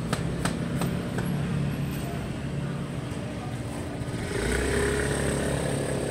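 Hand-pumped stainless-steel milk frother, its plunger clicking about four times a second and stopping just over a second in. About four seconds in, a louder low engine drone from a passing vehicle sets in over steady background noise.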